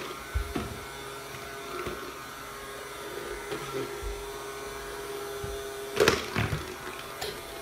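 Hover soccer disc's small fan motor whirring steadily as the toy glides over a hard floor on its cushion of air. A few knocks come as it bumps into things, with the loudest knocks about six seconds in.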